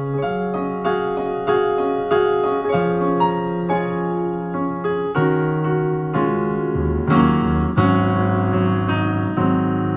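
Piano music: chords and melody notes struck at a steady, unhurried pace over held low bass notes that change every two or three seconds.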